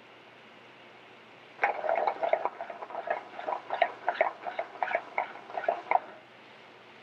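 A sauté pan of butter sauce swirled and shaken over a gas burner, the sauce sloshing and crackling in the hot pan and the pan knocking on the grate, in an irregular run of short clatters for about four seconds. The sauce is being worked back together into an emulsion.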